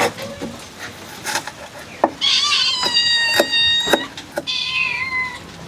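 An animal calling: one long drawn-out cry of about two seconds, then a shorter one falling in pitch, over scattered sharp clicks and knocks.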